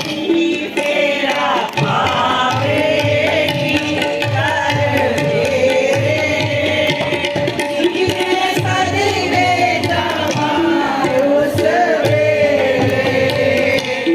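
A group of women singing a song together, one leading into a microphone, over a steady drum beat.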